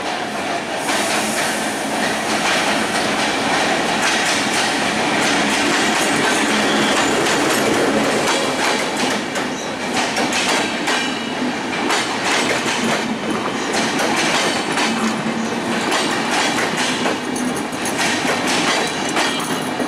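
Diesel-hauled Bangladesh Railway intercity train, the Chitra Express, rolling past close by along the platform. Its coach wheels clack over the rail joints in a steady, loud run, with some wheel squeal in the middle.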